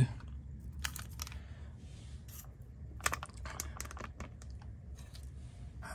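Scattered light clicks and paper crinkling as a small square of brown paper holding weighed vitamin C powder is lifted off a digital scale and tipped out, over a steady low rumble.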